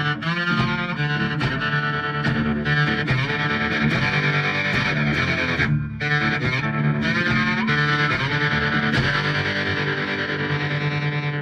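Intro music led by distorted electric guitar, with a short break about six seconds in.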